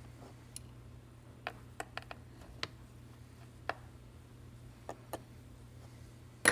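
Light, sharp clicks of a small precision screwdriver and tiny screws against the metal plate inside an iPhone 7, about ten at irregular spacing, with the sharpest near the end. A steady low hum runs underneath.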